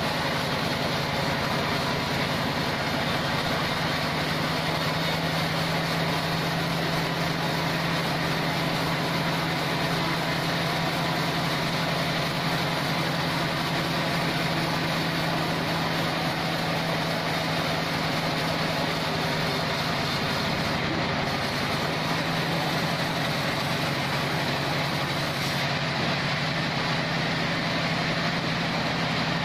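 Band sawmill running steadily, a constant low hum with even mechanical noise over it.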